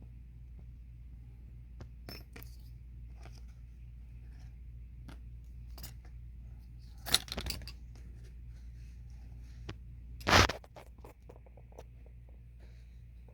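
Scattered small metallic clicks and clinks, as of parts or tools being handled, with two louder knocks, about seven and ten seconds in, over a steady low hum.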